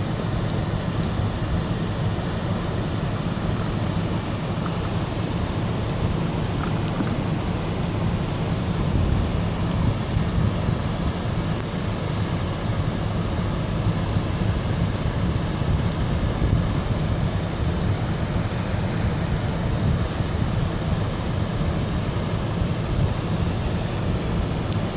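Waterfall running as it thaws: a steady, unbroken rush of falling water with a deep rumble underneath.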